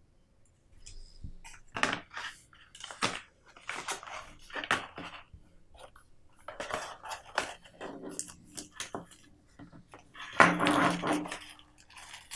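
Hands handling paper and cardboard packaging: a series of short rustles, slides and taps as a paper booklet and a folded cardboard box insert are moved about, the loudest scrape about ten seconds in.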